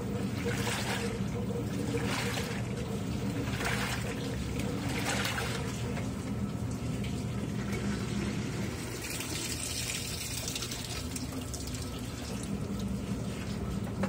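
Top-load washing machine agitating: water and clothes churn in rhythmic swishes about every second and a half over a steady motor hum. The churning stops about halfway through, leaving the hum and a softer hiss.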